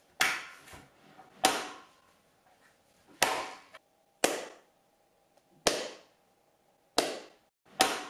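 A room echo test: sharp single impulses about every second, each trailing off into the room's reverberation. The first three, in the bare room, ring on longer; from about four seconds in, with the wall cabinets fitted, each dies away sooner, showing less echo.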